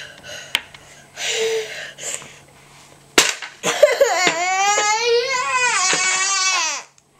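A young child crying: a short sobbing breath about a second in, then a long wavering wail of about three seconds that breaks off near the end. A sharp knock comes just before the wail.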